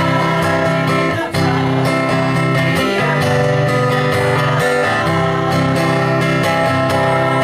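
Acoustic guitar strummed in steady chords, with a brief break a little over a second in.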